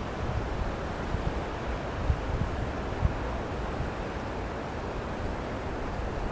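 Insects chirring high-pitched in short on-and-off spells over a steady low rumble of wind on the microphone.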